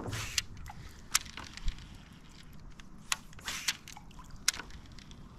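Scattered sharp clicks and ticks from a baitcasting reel being handled after a backlash, the line overrunning and tangling on the spool, over a faint wash of water against a kayak.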